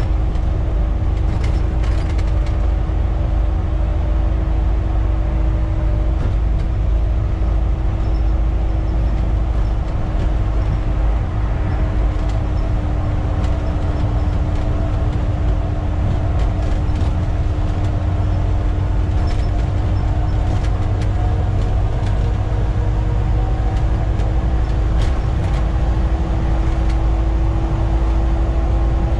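Volvo B7TL double-decker bus's D7C six-cylinder diesel engine running steadily with the bus under way at speed, heard from the driver's cab, with a steady whine over the engine and road noise.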